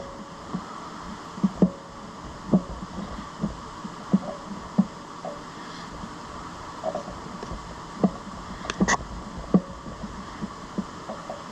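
Small Phillips screws being driven by hand with a screwdriver into a steel clamp: irregular clicks and light knocks of the bit and metal parts, the loudest about nine seconds in, over a steady background hum.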